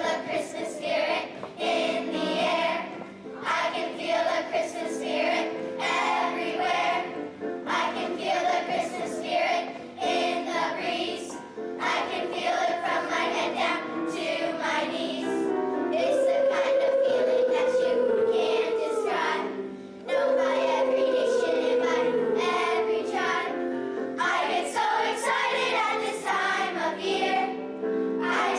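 A children's choir singing a song with musical accompaniment, holding long notes around the middle.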